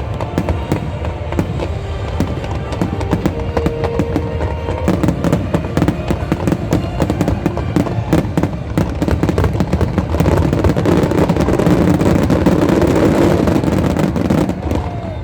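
Fireworks display: a dense, continuous crackle of rapid pops and bangs over a low rumble, growing louder and thicker in the second half.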